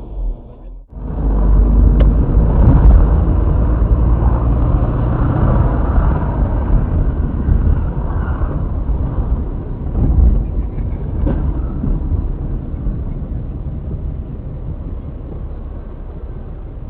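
Dashcam recording from inside a moving car in city traffic: a steady, loud low rumble of engine and road noise, with a couple of sharp clicks, one about two seconds in and one about eleven seconds in. The sound drops out briefly about a second in.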